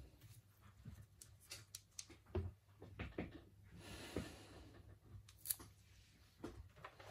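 Faint handling noise: scattered small clicks and taps of a smartphone and repair tools being handled, with a brief soft rubbing about four seconds in.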